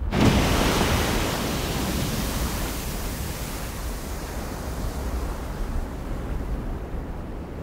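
A loud, even rushing noise with a low rumble underneath; it starts abruptly and slowly eases off.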